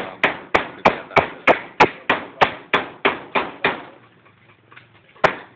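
Hammer blows struck in a steady rhythm, about three a second, stopping a little under four seconds in; after a short pause a single strike comes near the end.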